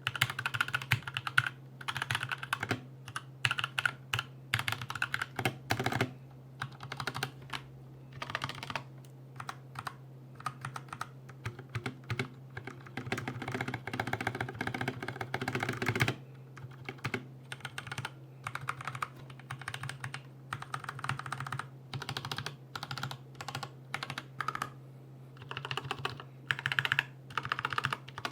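Typing on a Zet Blade Pro mechanical keyboard with Kailh Red Box linear switches and a metal backplate: runs of rapid keystroke clatter with short pauses, over a steady low hum. The stabilized keys are audibly poorly lubricated from the factory, and the backplate resonates.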